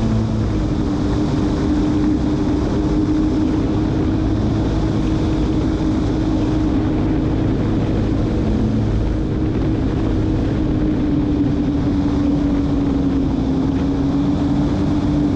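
Jet ski running flat out at high speed, its engine holding a steady tone over a rush of wind and spray.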